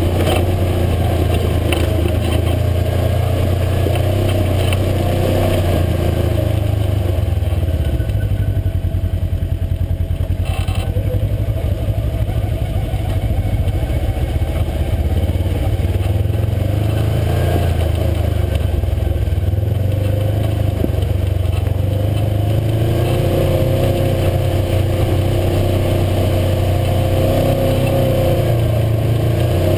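UTV engine running under way, its pitch sliding down and back up several times as the throttle eases and opens, climbing again near the end.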